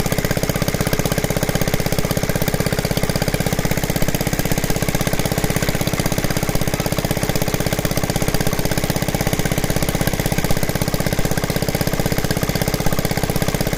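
Sewing machine running flat out, its needle mechanism clattering in a very fast, even rhythm that holds steady without a pause.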